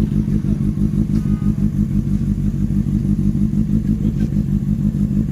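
Motorcycle engine idling steadily through a loud aftermarket exhaust, an even, rapid low pulsing with no revving.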